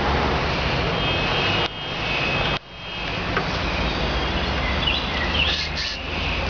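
Steady outdoor background rush that drops away briefly about two seconds in and then builds back, with faint high chirps near the end.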